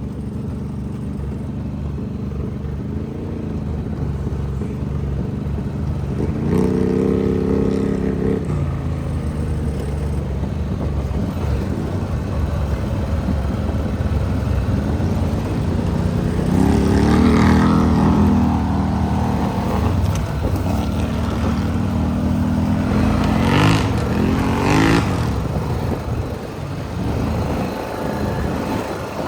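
ATV engine running under way, the throttle opened several times so its pitch climbs in surges, about a quarter of the way in, past the middle, and again near the end.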